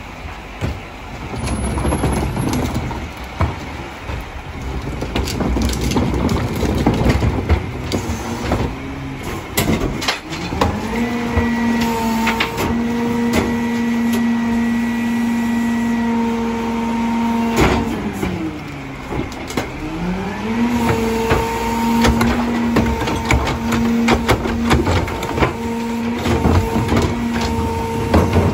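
Rear-loader garbage truck working at its hopper: carts and trash bang and knock as they are dumped in. About ten seconds in the engine speeds up to a steady high tone to drive the hydraulic packer. Around eighteen seconds in, after a loud bang, the tone drops in pitch and climbs back.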